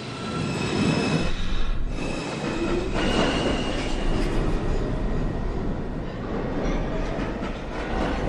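New York City subway train pulling out of the station after its doors close, running loud along the platform, with steady high tones in the first few seconds.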